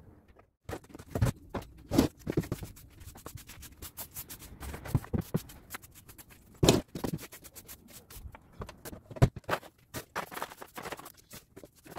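Stiff broom sweeping grit and debris on tarmac in short, irregular scratchy strokes, with a few louder knocks in between.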